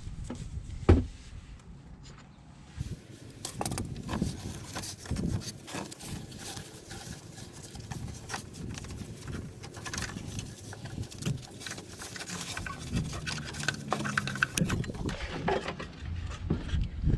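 Hand tools and metal parts being handled at work on a car's auxiliary belt and tensioner: a sharp knock about a second in, then a run of small clicks, taps and rubbing.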